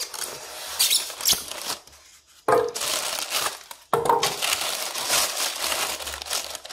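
Clear plastic wrapping crinkling and rustling as a small audio mixer in its bag is handled and lifted out of its box and foam packing. Scattered crinkles at first, then louder, near-continuous rustling from about halfway in.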